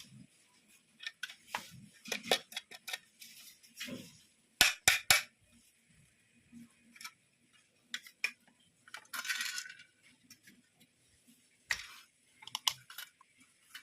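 Irregular clicks, taps and clinks of an emergency light's plastic housing and parts being handled as it is taken apart, with a short scraping rustle about nine seconds in.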